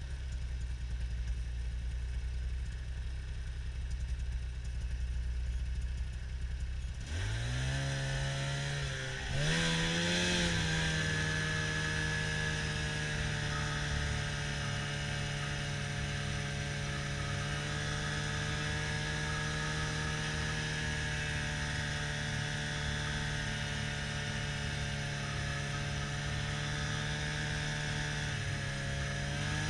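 Snowmobile engine running low and slow, then revving up about seven seconds in. The pitch dips briefly and climbs again, then settles into a steady run as the sled cruises.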